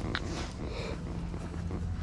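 Faint, short dog noises over a steady low hum.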